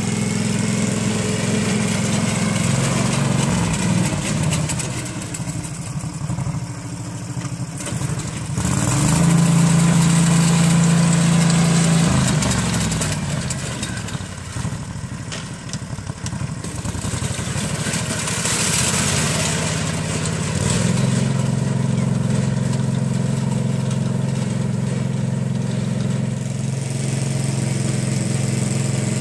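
Rapid Spezial two-wheel tractor's engine running as it tows a hay rake, its pitch dropping and rising a few times, loudest about a third of the way in, then holding steady through the last third.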